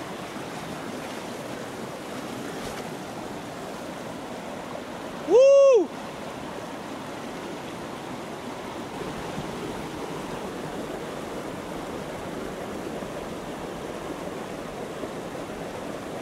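Steady rush of water running over rocks and mud, with one loud "woo!" shout from a man about five seconds in.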